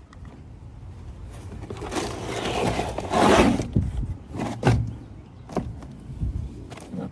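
Handling noise: a drawn-out scraping rustle that swells for about two seconds, loudest about three seconds in, followed by a few light knocks.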